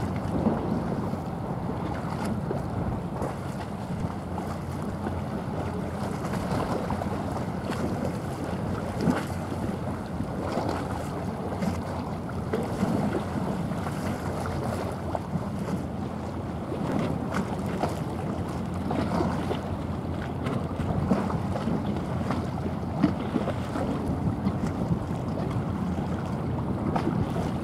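Wind buffeting the microphone over a steady wash of water, with a few brief louder gusts.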